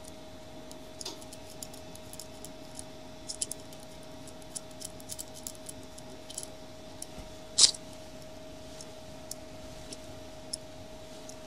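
Small metal clicks and ticks of a handheld archery release and its thumb peg being handled and fitted, with one louder clack about two-thirds of the way through. A steady faint hum runs underneath.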